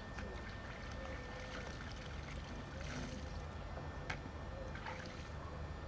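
Clothes being washed by hand in a metal tub of water: faint sloshing and splashing with a few small knocks, over a steady low hum.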